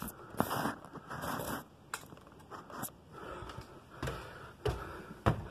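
Irregular footsteps and dull thuds mixed with scuffing and rustling, as of someone moving about and handling things; several low knocks come in quick succession near the end.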